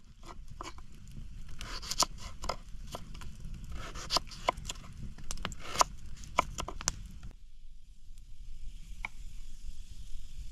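Knife slicing through raw potatoes and knocking on a wooden cutting board: a run of sharp, irregular clicks. They stop about seven seconds in, leaving a faint steady hiss.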